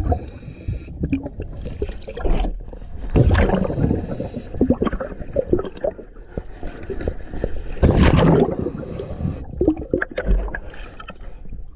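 A scuba diver's exhaled bubbles gurgling past an underwater microphone, in two big surges about four and a half seconds apart, one per breath, with light clicking and crackle between.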